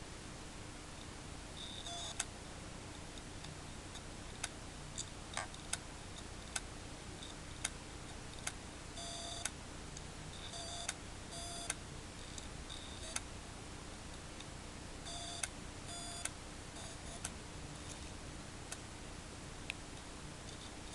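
Toshiba hard disk drive clicking: sharp, irregular clicks about every second, some in short clusters with brief buzzy chirps, over a faint steady hum. Repeated clicking like this is typical of a failing drive whose heads cannot read.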